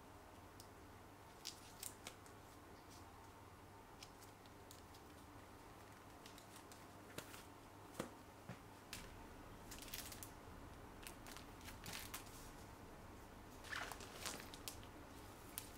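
Faint rustling and light taps of paper packs in clear plastic sleeves being handled, heard as scattered soft clicks over quiet room tone.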